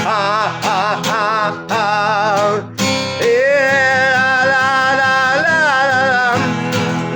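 Acoustic guitar strummed under a wordless sung vocal line: wavering notes at first, then one long held note from about three seconds in that stops near the end.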